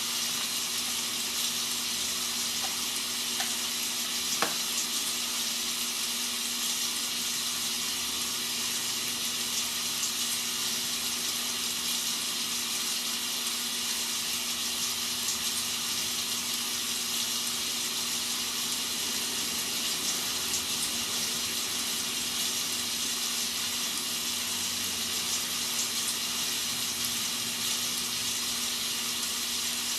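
Rain sound effect used as white noise: a steady, even hiss of rainfall with faint scattered patters, over a low steady hum. A small click about four seconds in.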